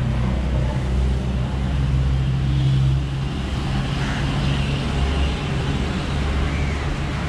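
Road traffic: a steady low engine hum from vehicles running on the street.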